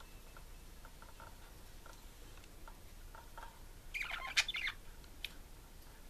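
Pet budgerigars making faint short chirps, then a brief burst of louder, higher chirping about four seconds in.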